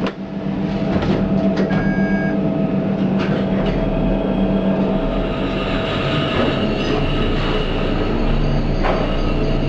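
ThyssenKrupp lift car running: a steady mechanical hum and rumble that deepens after about four seconds. A few sharp clicks and a short electronic beep come near the start.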